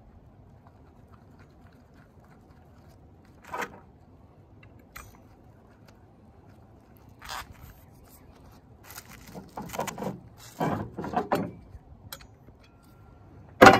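Hands handling metal parts on bubble wrap: scattered rustles and small clinks, busiest around ten seconds in, with one sharp knock near the end.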